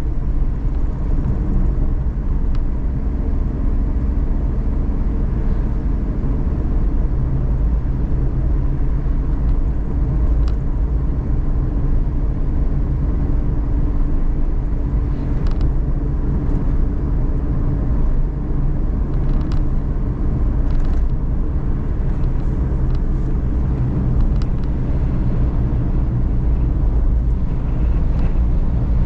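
Suzuki Every DA17V kei van heard from inside the cabin while driving: a steady low rumble of engine and road noise with an even engine hum. A few faint light clicks or rattles come and go.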